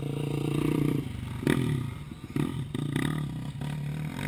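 Motocross dirt bike engines running at high revs on the track, the pitch holding steady and then breaking off and picking up again several times as the throttle is chopped and reopened.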